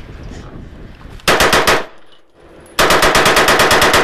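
AR-15 carbine with a Slide Fire bump-fire stock firing 5.56 rounds in rapid, full-auto-style bursts. A short burst comes about a second in, then after a brief pause a longer burst of over a second.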